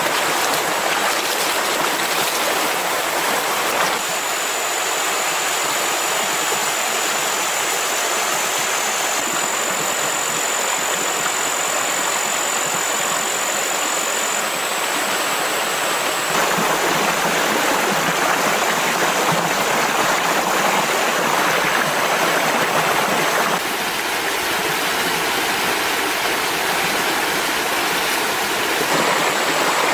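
Steady rushing of a flowing stream over rocks, changing abruptly in level and tone a few times as clips are cut together.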